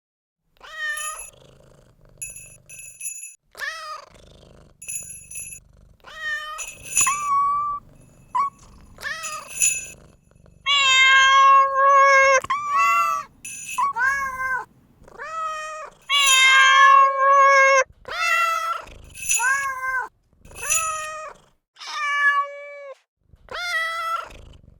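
Domestic cat meowing over and over, about fifteen separate meows of varying length, several of them drawn out for about two seconds. A few short high-pitched calls sit among the first meows.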